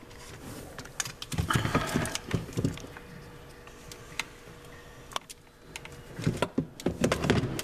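Irregular clicks, knocks and rattles of a ride-on toy's plastic-cased 24-volt battery being handled and its white wire plug connector being worked loose, in two busier clusters, one about a second and a half in and one near the end.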